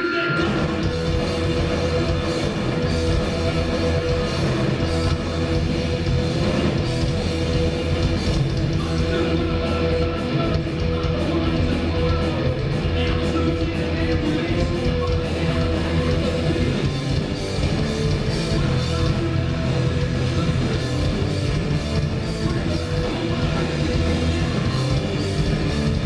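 Punk rock band playing live at a sound check: electric guitars, bass guitar and drum kit playing a loud, continuous song.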